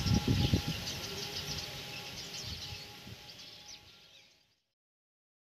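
Outdoor ambience with small birds chirping over a steady hiss and a low rumble in the first second, fading out and ending about four and a half seconds in.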